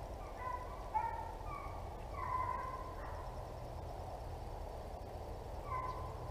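Distant hunting hounds baying: a run of short bays through the first half and one more near the end, over a steady low rumble.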